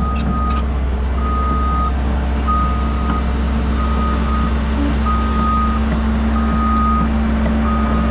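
Backup alarm of heavy equipment reversing: a single-pitched beep repeating about every 1.3 seconds, seven beeps in all, over the steady drone of a diesel engine running.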